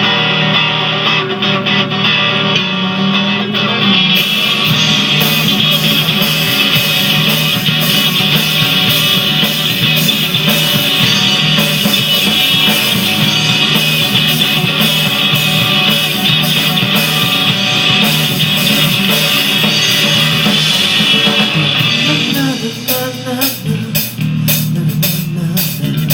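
Instrumental intro of a rock song: guitars over bass and drum kit, the drums coming in about four seconds in. The full band drops back about 22 seconds in, leaving the guitar and bass.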